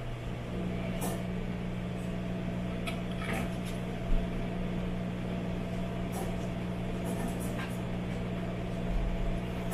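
Self-serve push-button coffee machine running as it makes a drink into a paper cup: a steady motor hum that steps up about half a second in. A few light clicks and a dull thump about four seconds in come through over it.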